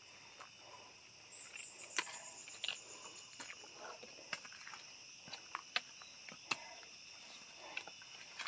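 Steady high-pitched drone of rainforest insects, with scattered sharp taps and footsteps on the sandy trail.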